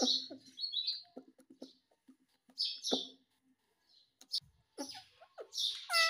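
Indian ringneck parrot chattering in short chirps and clicks with brief pauses, breaking into a wavering pitched call near the end.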